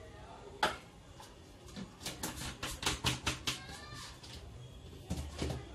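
Plastic clicks and taps from a protein-powder scoop, shaker bottle and tub being handled: a single click early, a quick run of taps about two seconds in, and a duller knock near the end.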